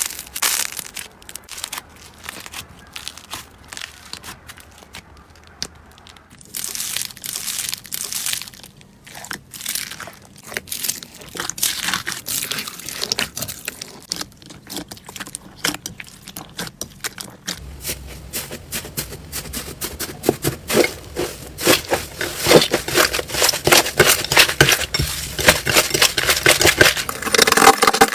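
Slime being squeezed and pressed by hand, making rapid crackling, popping clicks. The crackling is sparse at first and turns dense and louder in the second half.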